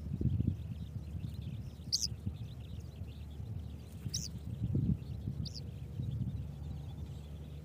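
Three short high bird chirps about two seconds apart, over faint background chatter of other birds or insects and a steady low rumble of wind on the microphone.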